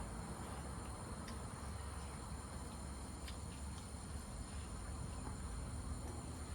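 Steady high chirring of insects over a low rumble, with a few faint light clicks.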